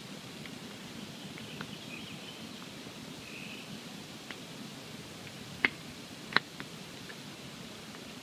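Wood campfire burning with a steady low rush, broken by scattered small crackles and two loud, sharp pops a little under a second apart past the middle.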